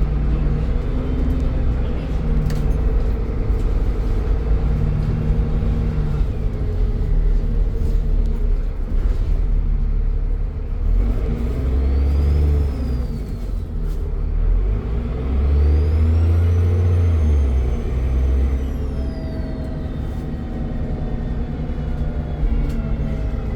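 Dennis Trident double-decker bus engine running under load. Its turbocharger whistle rises and falls twice: briefly about halfway through, then longer and higher a few seconds later.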